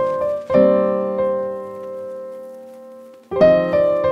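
Background piano music: struck chords, one held chord ringing out and fading for nearly three seconds before new chords start near the end.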